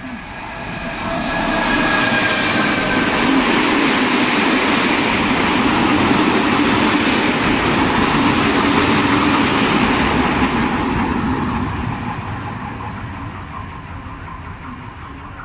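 A freight train passing close by at speed: the noise builds as the locomotive arrives, with a thin whine dipping slightly in pitch as it goes past, then the steady rumble and rattle of a string of covered freight wagons, fading as the train draws away, with a faint rhythmic wheel clatter near the end.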